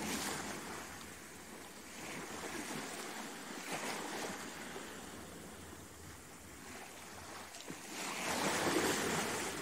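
Ocean waves washing in, a hiss that swells and fades in slow surges every few seconds, the loudest one near the end.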